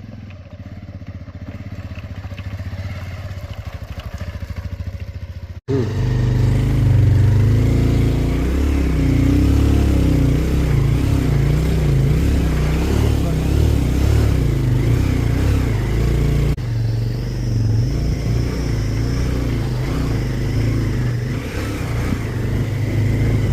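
Motorcycle engine running while riding. For the first few seconds it is a quieter, steady fine putter. After a sudden break about five and a half seconds in, it turns louder, with a heavy, uneven low rumble.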